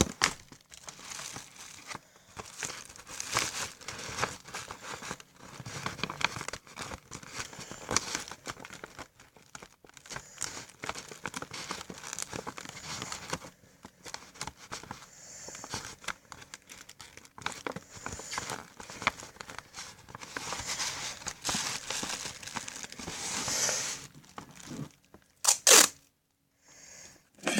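Paper and sellotape being handled, folded and pressed down: irregular crinkling and rustling with small crackles. A short louder burst comes near the end, followed by a moment of quiet.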